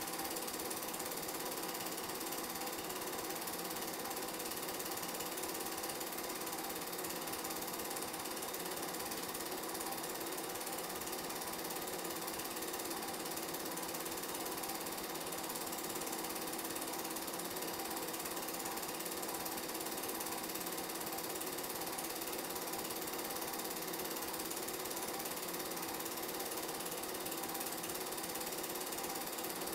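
A film projector running: a steady mechanical whir and clatter with a constant hum underneath.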